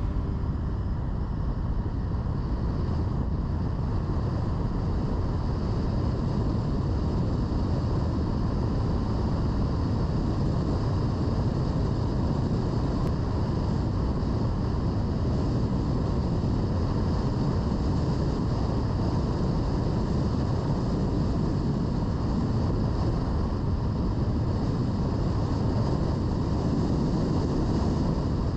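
Car driving along a sealed road: steady rumble of tyres and wind noise.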